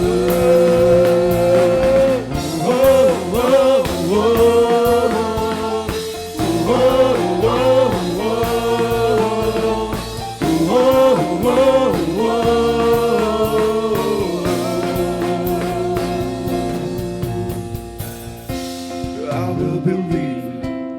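Worship band music with singing: a melody with sustained chords underneath, and no clear words. It thins out near the end.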